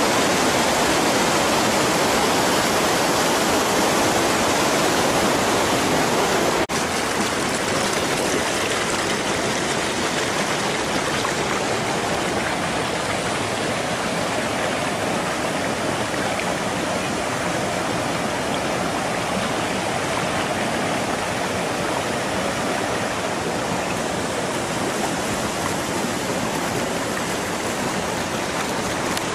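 Rushing water of the Rio On Pools waterfall and cascades pouring over granite, a loud steady rush. There is a short click and dip about seven seconds in, after which the rush sounds a little thinner.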